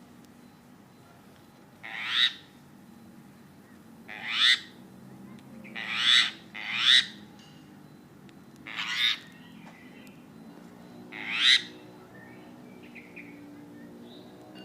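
Javan myna giving harsh squawking calls, six in all, each about half a second long and one to two seconds apart.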